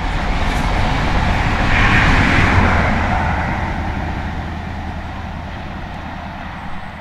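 High Speed Train with class 43 diesel power cars passing and drawing away: a low engine hum under the noise of wheels on the rails, loudest about two seconds in and then slowly fading.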